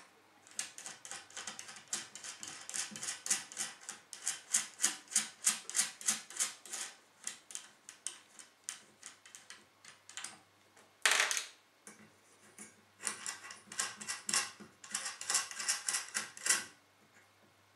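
Quick, repeated clicking of the metal mounting screws on a syscooling SC-C16 CPU water block as they are unscrewed by hand from the motherboard, about three to four clicks a second, in two runs. There is one louder clatter about eleven seconds in.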